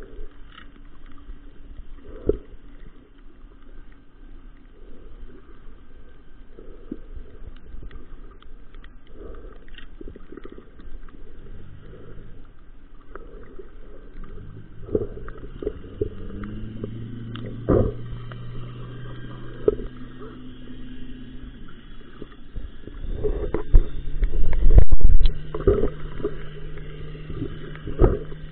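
Muffled underwater sound from a camera held below the surface while snorkeling: a low rumble with scattered clicks and knocks. A low steady hum, with one short rising glide, comes in about twelve seconds in, and a loud stretch of bumping and rumbling comes near the end.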